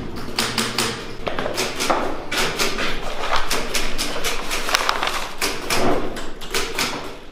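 Rapid, irregular sharp clicks and clacks, several a second, with no steady rhythm.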